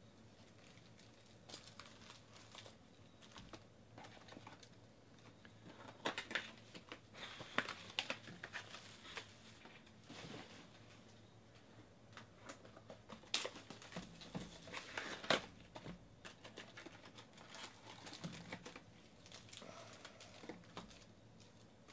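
Foil wrappers of Panini Select football card packs crinkling and tearing as they are handled and opened, in irregular bursts that are loudest around the middle.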